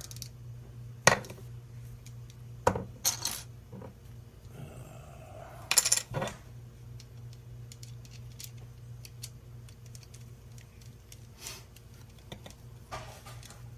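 Small metal parts, screws and a screwdriver clicking and clinking against each other and the wooden tabletop as they are handled: a handful of sharp separate clicks, with a short cluster about six seconds in.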